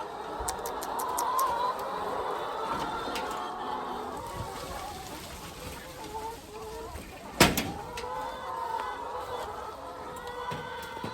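A flock of chickens clucking and calling throughout, with one sharp knock about seven and a half seconds in.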